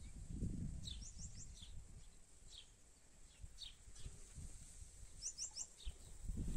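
A small bird chirping in short, high notes, with quick runs of three chirps about a second in and again near the end, over a low rumble.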